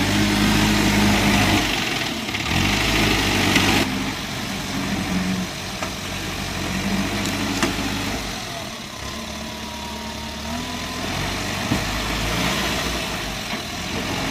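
Heavy vehicle's engine running steadily, its level shifting and dropping for a few seconds past the middle.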